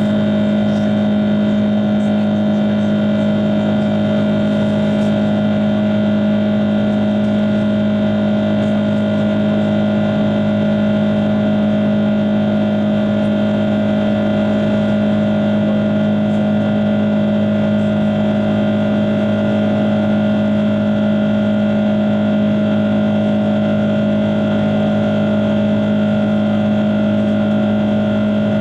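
Airbus A330-300's Rolls-Royce Trent 700 turbofan engines at climb power, heard inside the passenger cabin: a loud, steady drone of constant hum tones over rushing airflow noise.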